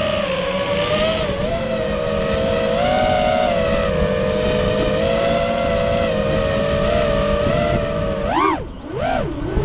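FPV quadcopter's brushless motors whining at a fairly steady pitch, then swooping quickly up and down in pitch several times near the end as the throttle changes.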